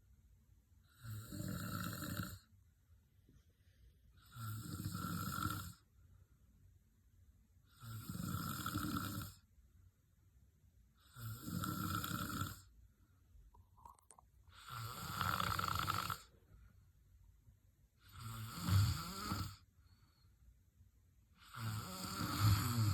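Loud snoring: seven long snores at a steady pace, one about every three and a half seconds, with quiet breaths between.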